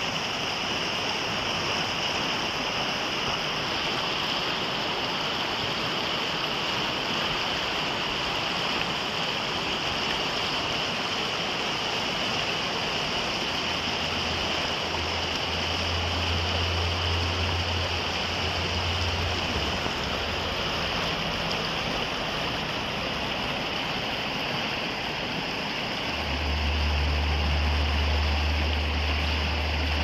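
Shallow river rapids rushing and splashing over boulders in a steady wash of water noise. A low rumble comes in for a few seconds about halfway through and again near the end.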